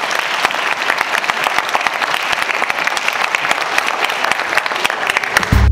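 An audience applauding: many hands clapping together in a steady, dense patter. Just before the end it gives way to drum-led music.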